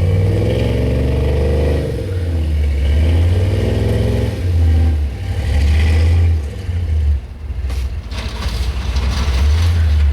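Snow plow truck's engine revving and labouring as it pushes deep snow, the pitch rising and falling with the throttle. About seven seconds in the engine eases off and a few short knocks follow.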